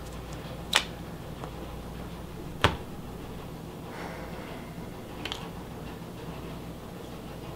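A wallet being handled and put down on a table: two sharp clicks about two seconds apart, the second louder with a low knock, then a fainter click, over a steady low room hum.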